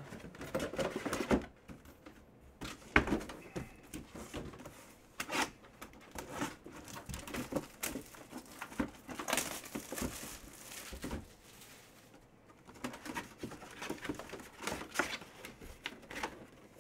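Cardboard box of an autographed football mini helmet being handled and opened: irregular knocks and scrapes of cardboard with crinkling, and a longer rustling stretch about nine to eleven seconds in.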